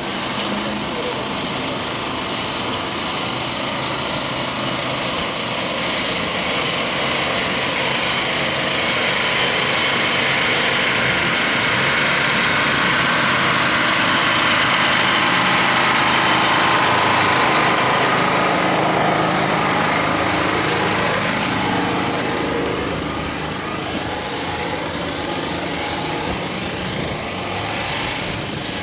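An engine running steadily, growing louder toward the middle and easing off again later.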